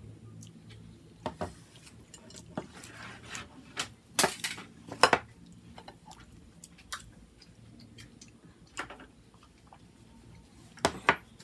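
Cutlery clinking and scraping on plates and food boxes: a scatter of separate short clicks and knocks, the loudest a little before the middle and a close pair near the end.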